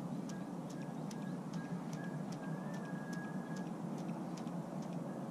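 A casting reel being cranked to retrieve a topwater lure, with regular light clicks about two to three a second over a steady low rush.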